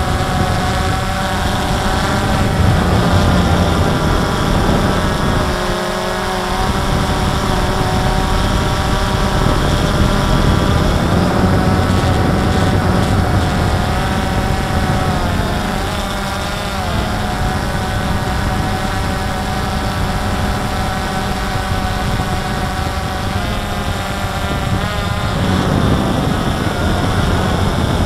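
DJI Phantom 2 quadcopter's electric motors and propellers whining steadily, heard from on board, their several pitches drifting and crossing as the drone manoeuvres. A rumbling wind haze runs underneath, dropping away briefly about six seconds in.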